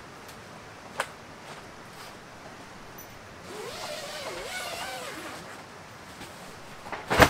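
A tent window zipper being pulled open for about two seconds, its pitch wavering up and down with the speed of the pull. A loud sharp noise comes right at the end.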